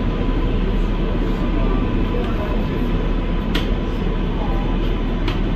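New York City subway train on the IRT Lexington Avenue Line, running with a steady, loud rumble, with two sharp clicks about three and a half and five seconds in.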